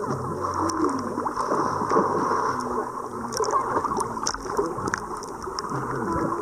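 Muffled gurgling and sloshing of seawater around a camera held at and just under the surface, over a low steady hum.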